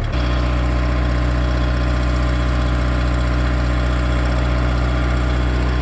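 Kubota tractor's diesel engine running steadily at high throttle, its note stepping up suddenly right at the start.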